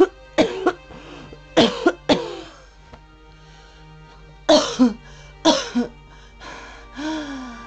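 A person coughing in short harsh fits, mostly two coughs at a time, repeated several times over soft background music.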